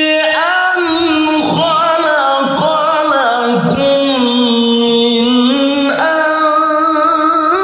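Solo male voice reciting the Quran in melodic tilawah style into a microphone: long held, ornamented notes with slow glides. The pitch sinks to a long low held note around the middle and climbs again near the end.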